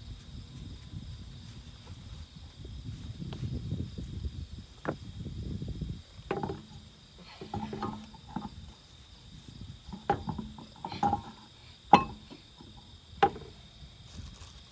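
A car wheel and tire being handled and lifted onto a front hub, with low bumping and shuffling, then a string of sharp metallic clinks as the wheel seats on the studs and lug nuts go on. The loudest clink comes near the end.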